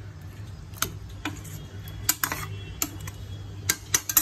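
Metal ladle clinking and scraping against the sides of a pressure cooker pot as a thick keema curry is stirred. The clicks are irregular, about eight over four seconds, over a low steady hum.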